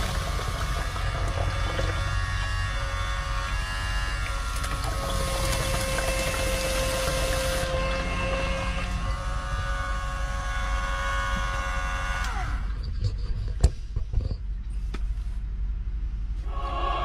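A small 12-volt water pump whining steadily as water runs from the faucet into the sink. About eight seconds in the splashing stops, and some four seconds later the pump's whine falls in pitch and stops as it cuts out, followed by a sharp click. A steady low hum continues underneath.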